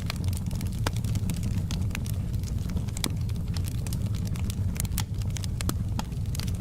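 Wood fire burning in a fireplace: a steady low rumble with irregular sharp crackles and pops scattered through it.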